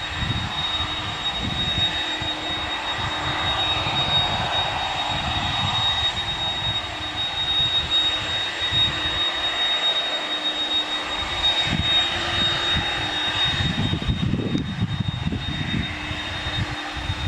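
Boeing 767-341ER jet engines running with a steady high whine over a rushing noise, with wind buffeting the microphone in irregular low gusts.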